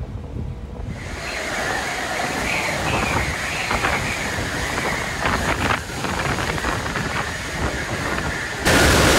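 Hurricane-force wind blowing and gusting against the microphone, with a wavering high whistle and scattered clatter. Near the end it cuts suddenly to a louder, steady rush of wind.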